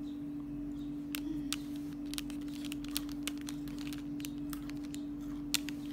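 Scattered small crisp clicks and crunches of a Sakura Matcha Pocky biscuit stick being bitten and chewed, over a steady low hum.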